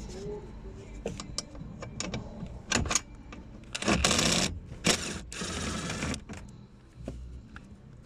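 Hand-tool and trim-handling noise: scattered sharp clicks and several short rasping, scraping bursts as a hand tool works on the fasteners of the plastic panel under the dashboard.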